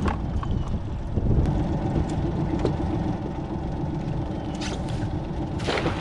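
Cast net being thrown from a jon boat: a few light clinks as the weighted net is gathered and swung, then a splash near the end as it lands on the water, over a steady low rumble.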